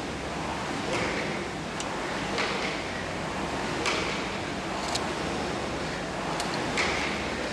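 Indoor rowing machine being rowed: the flywheel fan gives a swish with each pull, about one stroke every second and a half, over a steady background noise.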